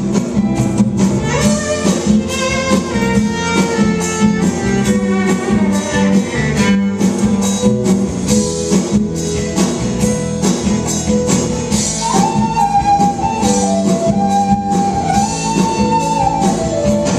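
Instrumental music: a fiddle playing a flowing melody over a steady percussion beat and a repeating low accompaniment.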